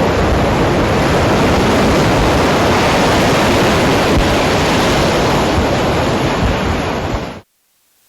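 Loud, steady rushing of storm wind and surf, with no pattern to it, that cuts off suddenly about seven seconds in.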